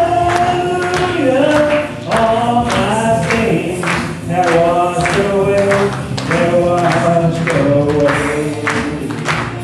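Live worship song: singing in long held notes over instrumental accompaniment with a steady beat.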